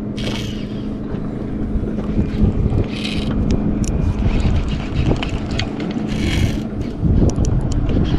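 Wind buffeting the microphone over a steady low motor hum from the boat, with three short hissing bursts spread through; the hum stops near the end.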